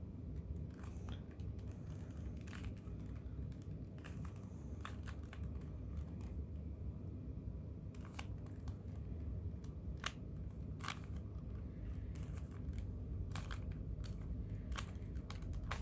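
Irregular plastic clicks and clacks of a 2x2 Rubik's cube being twisted by hand, over a steady low background hum.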